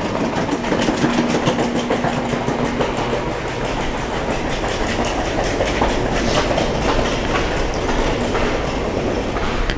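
Passenger train running on the rails: a steady rumble with rapid, rhythmic clicking of the wheels, and a faint steady tone over the first few seconds.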